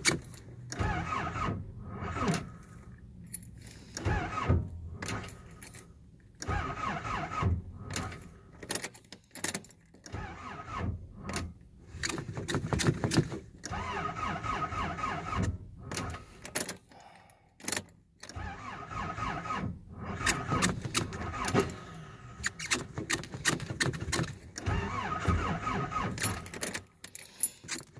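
Starter motor cranking a Nissan 720's cold engine in repeated attempts of a few seconds each, with short pauses between, the key ring jangling; the engine does not catch and start.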